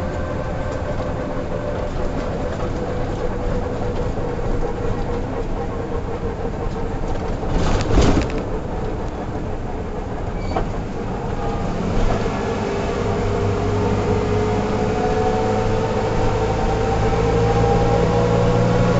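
Mercedes-Benz O305 city bus diesel engine running under way, with a brief loud noise about 8 seconds in. From about 12 seconds the engine gets louder and its note slowly rises as the bus pulls harder.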